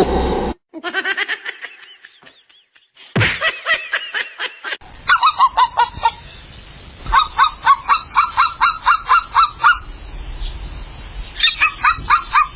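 Rapid runs of loud, repeated animal calls, about four to five a second, goose-like in kind. They come in several short stretches broken by sudden cuts.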